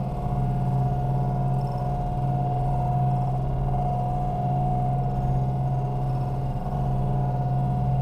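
Sampo 580 combine harvester running steadily while cutting barley: a constant low engine hum with a steady higher whine over it.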